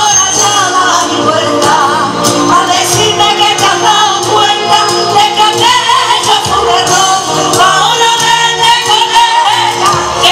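Live amplified sevillanas: a woman singing into a microphone over keyboard, electric guitar and drums.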